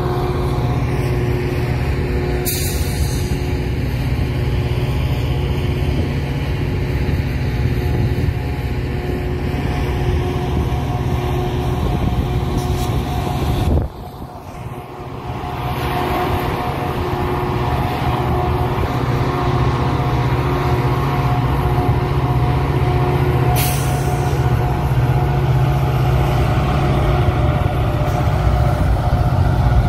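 Metra diesel locomotive running steadily beside the platform, a low engine drone with steady tones over it. Brief air hisses come a few seconds in, near the middle and about three quarters through, and the sound dips for a moment midway.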